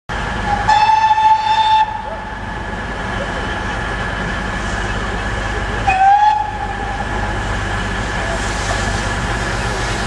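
Great Western steam locomotive whistle, a long blast about half a second in and a short one near the middle, on a steam special with a GWR Hall and a Castle class engine approaching. Under it the train's steady rumble grows louder toward the end.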